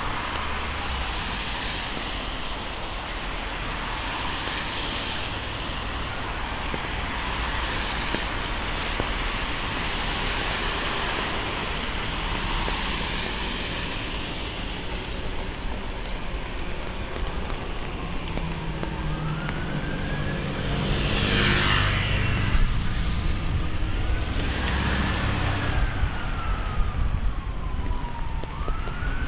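Traffic on a wet street with a steady hiss. In the second half an emergency vehicle siren wails, its pitch rising and falling slowly, and about two-thirds of the way through a vehicle passes close with a loud tyre swish and engine rumble.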